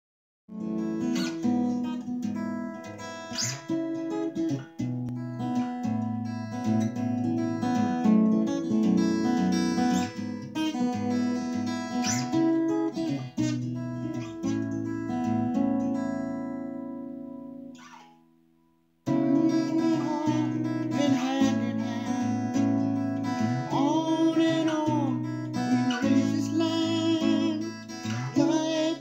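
Solo steel-string acoustic guitar playing, with notes ringing. About 18 seconds in it fades away to near silence, starts again a second later, and from about 23 seconds a man's voice sings over it.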